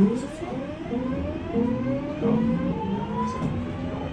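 Class 323 electric multiple unit pulling away: its GTO inverter and traction motors whine in a series of rising tones that step up in pitch again and again as the train gathers speed.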